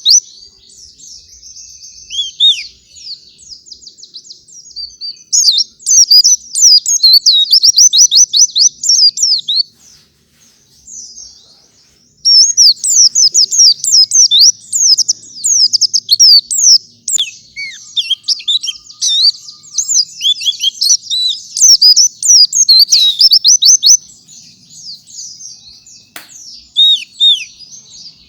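White-eye (pleci) singing a high-pitched, rapid twittering song in long runs of quick chirps and trills, with a brief lull about ten seconds in and softer twittering near the start and end.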